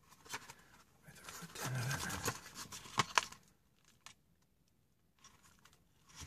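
Paper wrapping around flake pipe tobacco rustling and crinkling as it is unfolded and handled, with two sharp crisp snaps about three seconds in. Afterwards only faint occasional paper ticks.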